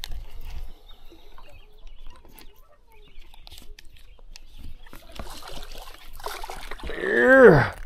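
A hooked smallmouth bass splashing at the surface beside the boat, with faint clicks from the reel and handling through the fight. Near the end, the loudest sound: a person's drawn-out 'ohh' that rises and falls in pitch.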